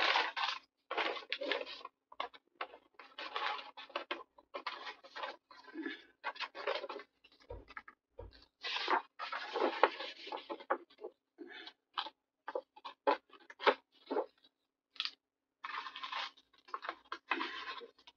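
Paper sheets being handled on a work table: irregular rustling and sliding in short bursts with brief pauses, and a couple of dull bumps about halfway.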